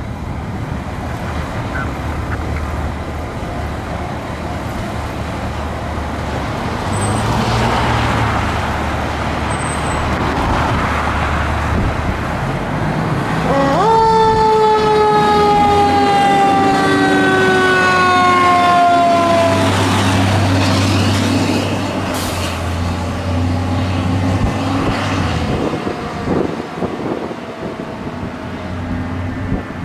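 Fire department tower ladder truck's engine rumbling as it pulls out and drives off, with one siren blast about fourteen seconds in that rises sharply and then winds down slowly over about six seconds.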